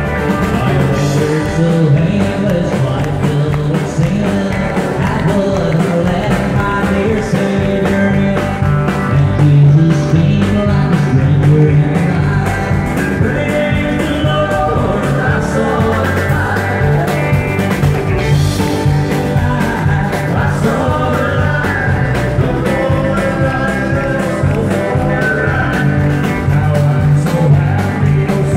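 Live country band playing a song, amplified guitars with drums and keyboard, with singing over it.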